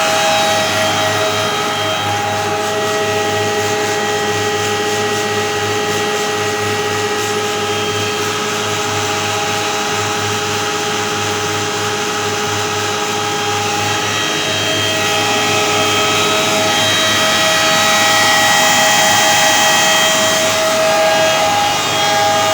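A machine running steadily under power, giving a continuous whine of several steady tones over a low hum, a little louder for a few seconds past the middle.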